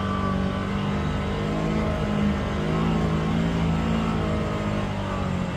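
Polaris Xpedition UTV engine running steadily under load on a climb, its pitch rising and falling slightly.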